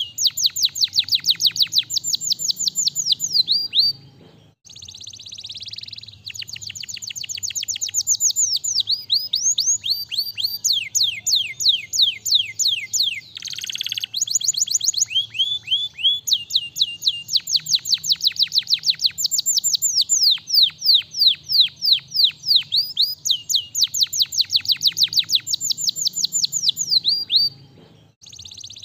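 Domestic canary singing long rolling phrases: rapid trills of short, high notes that each sweep down in pitch, with brief breaks between phrases.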